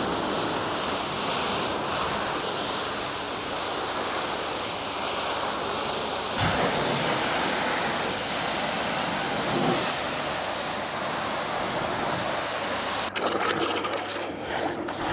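Steady hiss of pressure-washer water spray. The sound changes abruptly about six seconds in, and again near the end, where it turns broken and uneven.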